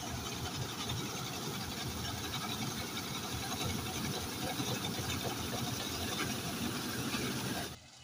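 New Holland combine harvester running close by as its header cuts standing rice: a steady, dense mechanical noise of engine and machinery with a low hum underneath. It cuts off suddenly near the end.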